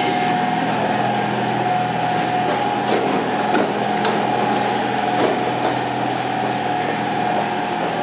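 Steady mechanical hum in an underground metro station, a train standing at the platform after braking to a stop, with a few faint footsteps and clicks of passengers moving past.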